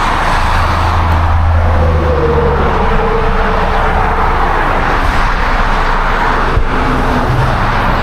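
Steady road traffic noise, with a heavier low rumble from a passing vehicle in the first couple of seconds that then fades.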